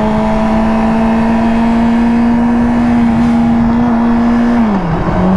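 Yamaha R6 inline-four engine running at a steady high pitch under way, over a steady rush of noise. Near the end the engine note drops quickly, then holds steady at a lower pitch.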